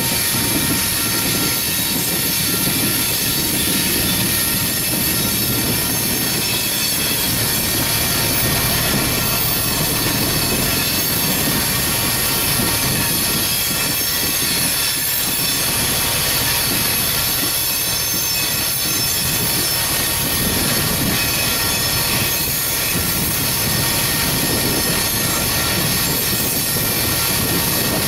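Coal train's freight cars rolling past: a steady rolling noise of steel wheels on rail, with high-pitched squealing from the wheels held throughout.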